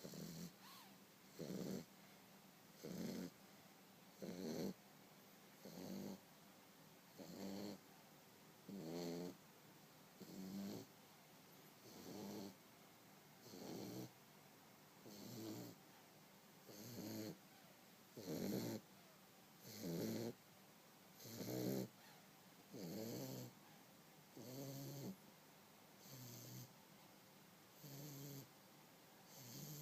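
A three-month-old bulldog puppy snoring in its sleep, with a short snore about every second and a half, some louder than others.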